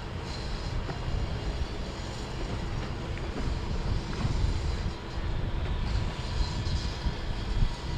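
Motorboat engines running as boats pass, a steady low rumble.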